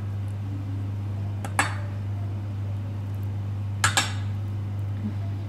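A metal spoon clinks against a metal mixing bowl: once about a second and a half in, then twice in quick succession near four seconds, each with a short ring. A steady low hum runs underneath.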